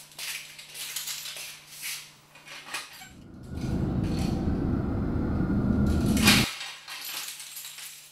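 Keys jingling and clicking against a metal mailbox as it is unlocked and opened. Midway, a loud low rumble lasts about three seconds and ends in a sharp clack.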